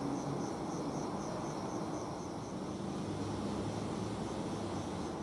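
Passenger coaches of a departing train rolling slowly past, a low steady rumble. Over it an insect, a cricket by its sound, chirps in a high pulsing trill.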